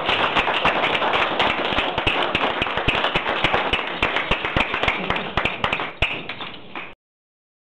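Small audience applauding with dense, irregular hand claps. The claps thin out near the end, then the sound cuts off suddenly.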